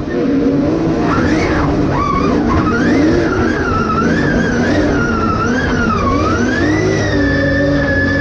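Drift car's engine heard from inside the cockpit, revving up and down repeatedly as the throttle is worked through a drift, climbing and holding high near the end, with tyre skid noise underneath.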